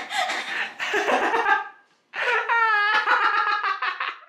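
A woman laughing: breathless, gasping laughter for the first couple of seconds, then after a brief pause a long, high-pitched laugh.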